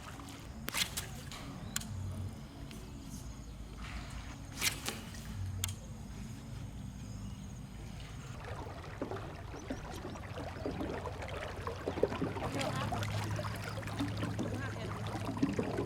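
Small boat's motor running with a steady low hum, a few sharp clicks over it early on, and busier rustling and knocking from about eight seconds in.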